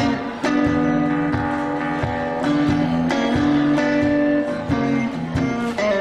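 Amplified Stratocaster-style electric guitar played solo in a blues style: a steady, repeating low bass figure under picked melody notes.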